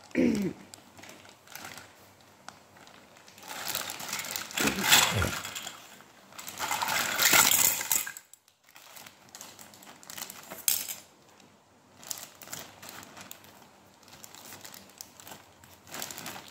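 Small plastic toy kitchen pieces clattering and rattling against each other as they are tipped out of a plastic bag, in two bursts a few seconds in, followed later by a single sharp click.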